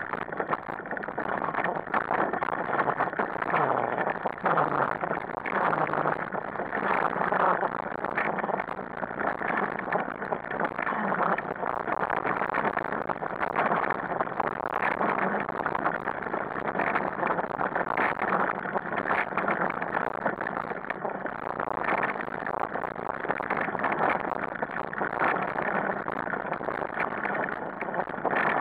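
A dog-pulled wheeled rig rolling fast over a rough dirt track: a steady rumble of wheels on gravel and dirt, full of irregular crackles and rattles.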